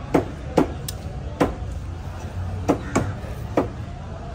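A large curved knife chopping down through a bluefin tuna loin and striking the wooden cutting board. There are about six sharp knocks at uneven intervals.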